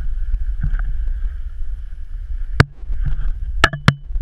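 Wind rumbling steadily over the microphone of a GoPro Hero 3 on a moving snowkiter, with three sharp knocks in the second half, the last two close together.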